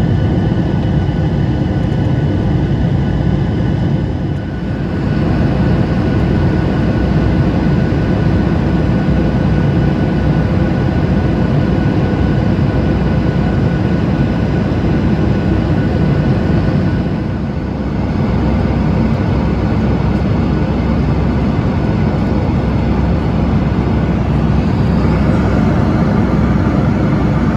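Boeing 737 MAX 8's CFM LEAP-1B jet engines running: a steady, loud rumble with a few faint steady whine tones over it. It eases briefly twice.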